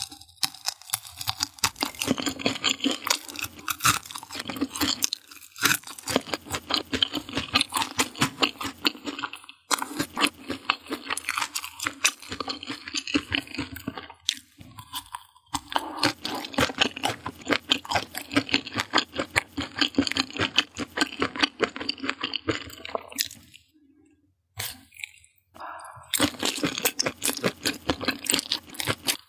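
Crunchy chewing of deep-fried skewered food, close to the microphone: runs of rapid crackling bites and chews broken by several short pauses, the longest near the end.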